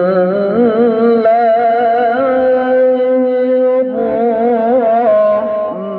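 A man's voice chanting melodic Quran recitation (tilawah) into a microphone, holding long notes with wavering, ornamented turns, with a short breath break about two-thirds of the way through.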